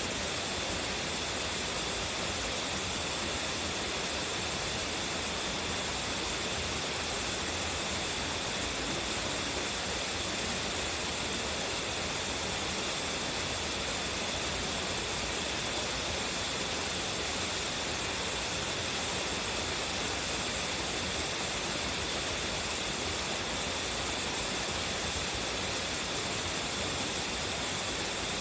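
A strong-flowing waterfall pouring steadily: a dense, even rush of falling water with no breaks or changes.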